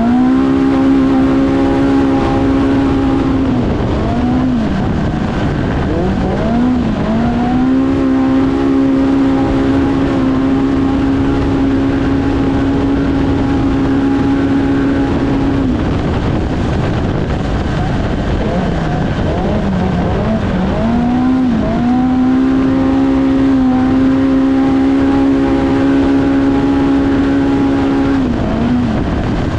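Polaris Pro R side-by-side engine heard onboard at racing speed. It is held at a steady high rpm for long stretches, as a belt CVT keeps it under full throttle. Several times it drops and swoops back up as the throttle is lifted and reapplied, over a constant rushing noise.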